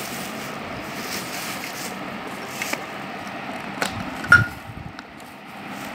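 Bubble wrap and plastic wrapping rustling and crinkling as the parts of a juicer blender are handled, with a few light clicks and a sharp knock with a brief ring about four seconds in.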